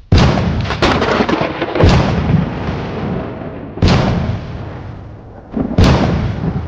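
Intro sound effects: four heavy cinematic booms about two seconds apart, each hitting suddenly and fading away.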